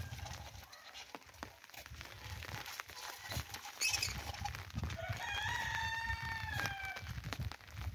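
A rooster crowing once: a single long call about five seconds in, lasting nearly two seconds, rising at the start and then slowly falling. A brief sharp sound comes a second before it.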